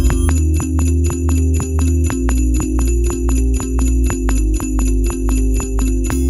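Background music with a steady, quick beat, jingling bell-like percussion on the beat over a sustained bass line.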